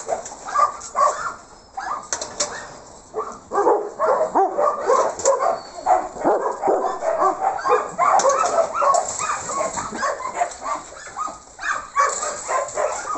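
Several dogs barking and yipping, short barks overlapping almost without pause.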